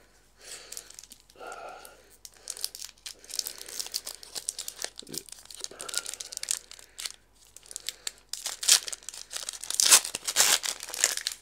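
Foil trading-card booster-pack wrapper being torn and crinkled by hand, an irregular crackle that is loudest in the last few seconds.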